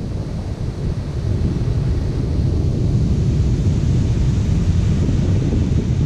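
Heavy, big-wave surf breaking and rumbling, with wind buffeting the microphone; a steady, loud, deep rush with no distinct single crash.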